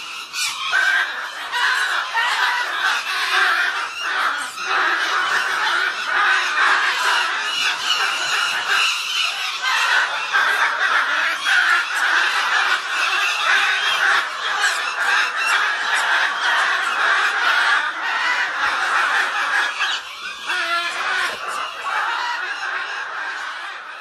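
Goffin's cockatoos screeching harshly and almost without a break, with a short dip about twenty seconds in.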